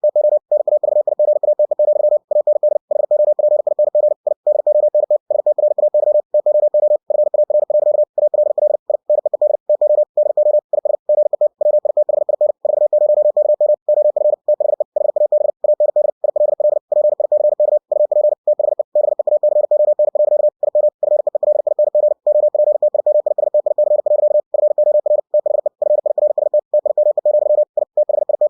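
Computer-generated Morse code (CW) sent at 60 words per minute by ebook2cw: a single pure tone of about 600 Hz keyed on and off in a very fast, unbroken run of dits and dahs with short gaps between characters and words.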